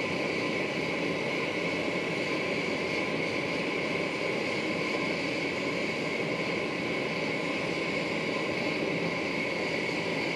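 Gas forge burner running with a steady, unbroken rushing hiss.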